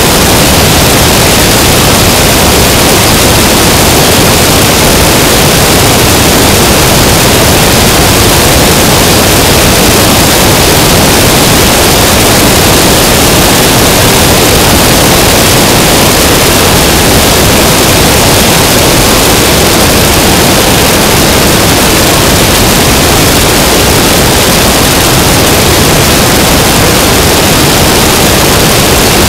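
Loud, steady rush of wind and engine noise from an Aeronca Chief light aircraft in cruising flight, picked up by an action camera mounted on the outside of the fuselage; an even noise with no distinct tones and no change.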